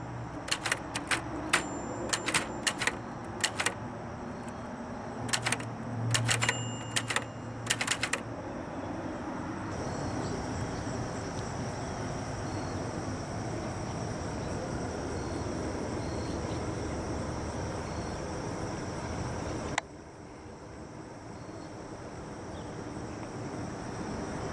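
A 1931 Triumph Klein typewriter typing: a quick, uneven run of type-bar strikes for about the first eight seconds. Then the typing stops and only a steady noise remains, which drops suddenly about twenty seconds in.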